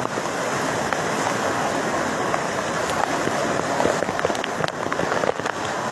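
Floodwater rushing along a street and cascading through gaps at the foot of a wall: a steady hiss of running water, with a few sharp splashes near the end.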